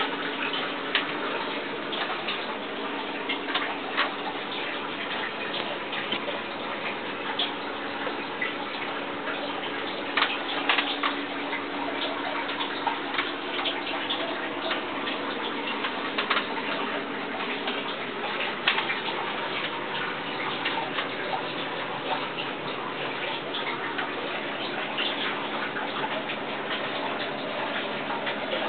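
Water trickling and dripping in an aquaponic system, with irregular small clicks and drips over a steady low hum.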